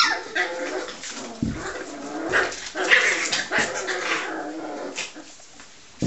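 Five-week-old English springer spaniel puppies play-fighting, giving squeaky, high-pitched growls and yelps in quick bursts, with a few soft knocks.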